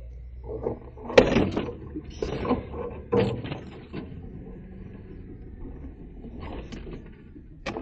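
Jeep Wrangler Rubicon jolting over a rutted, snowy trail in low gear: clusters of clunks and knocks from the body and cabin, loudest a little after a second in, over the low, steady drone of the engine. Heard from inside the cabin.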